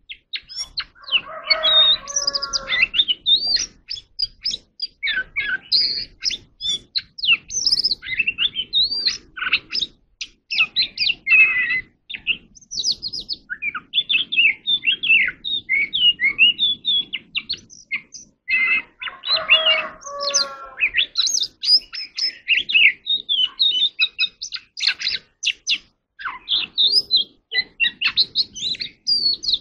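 Oriental magpie-robin singing: a long, varied run of quick high whistled and chattering phrases with short pauses. Twice, about a second in and again about twenty seconds in, a lower call of a second or so breaks in.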